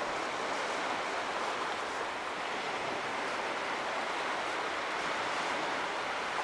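Sea waves washing in, a steady rush of water noise with no distinct breaks.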